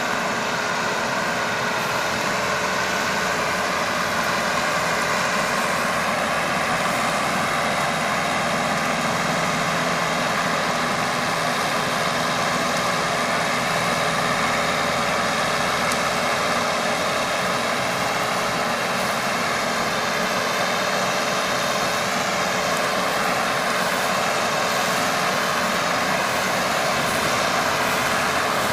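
A mini hay baler working wheat straw, its engine and machinery running at a steady, even pitch.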